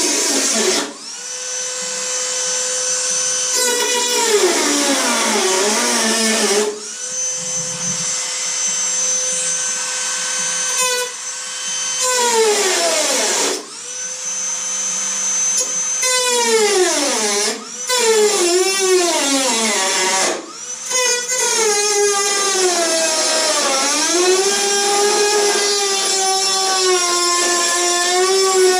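Dremel rotary tool cutting out a rotten section of a car door panel. It gives a high whine that holds steady when running free and sags in pitch each time the cutting disc bites, with several short stops and spin-ups.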